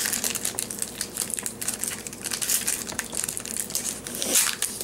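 Trading card pack wrapper crinkling as it is handled, a dense run of irregular crackles.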